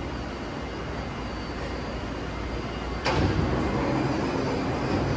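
Taipei Metro C381 electric train standing at the platform with a steady hum. About three seconds in comes a sudden clunk, followed by louder rushing noise as the train's doors and the platform screen doors slide open.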